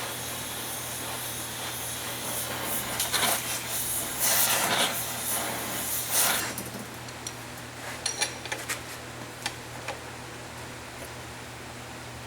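Oxy-acetylene torch flame hissing steadily, with a few louder surges, as it heats an engine mount to free a stuck bolt. The hiss stops about six and a half seconds in, followed by a few light metallic clicks.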